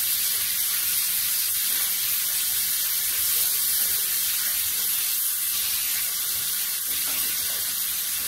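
Beef cubes and diced onions sizzling steadily in a hot cast-iron skillet as they brown, stirred with a wooden spoon.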